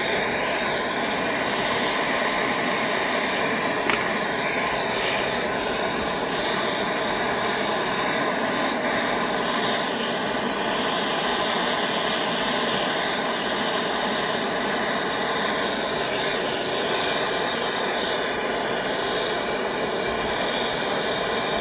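Handheld gas torch flame burning steadily as it heats a crucible of sterling silver scrap to melt it, with a single sharp click about four seconds in.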